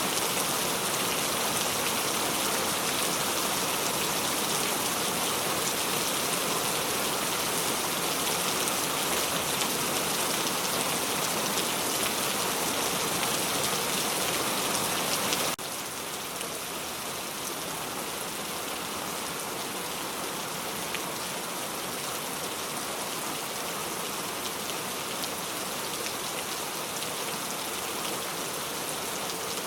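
Steady rain falling on a surface, an even hiss of many drops. About halfway through it drops suddenly to a softer level and carries on steadily, with a few separate drops ticking.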